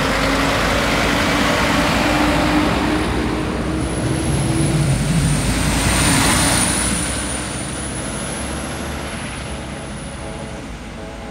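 Siemens RegioSprinter diesel railcar running past, with a thin high whistle that wavers in pitch over the running noise. It is loudest about six seconds in, then dies away.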